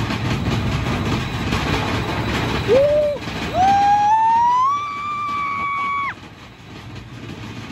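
Big Thunder Mountain mine-train roller coaster rumbling along its track. About three seconds in a rider gives a short high cry, then a longer yell that rises in pitch and holds before cutting off near six seconds.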